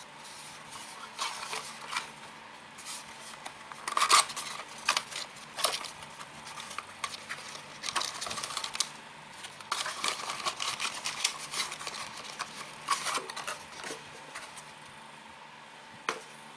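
Cardboard packaging and paper being handled: irregular scrapes, rustles and taps as a small cardboard box is slid out of its sleeve and a paper leaflet is pulled out and unfolded. The loudest scrape comes about four seconds in, with a busy run of rustling in the middle.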